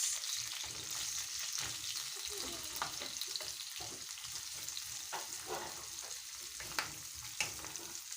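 Chopped onions sizzling in hot vegetable oil in a pan, stirred with a wooden cooking spoon (mwiko), with a few sharp ticks of the spoon against the pan.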